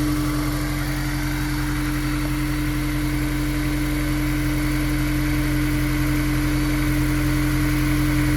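Honda S2000's four-cylinder engine idling steadily, with a loud, constant pitched hum over the engine note. The owner takes it for an abnormal noise and suspects the intake manifold or the pod-type air filter.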